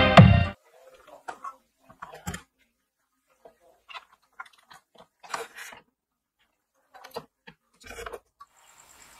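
Music with a heavy beat cuts off about half a second in, followed by faint, scattered clicks and rustles of hands handling wires and cables on the amplifier board.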